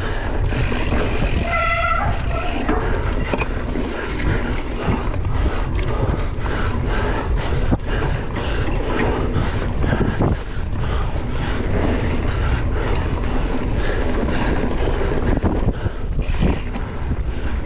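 Wind rushing over the microphone and the rattle of a bicycle ridden at speed on rough ground, with frequent small knocks. About two seconds in, a short pitched tone sounds briefly.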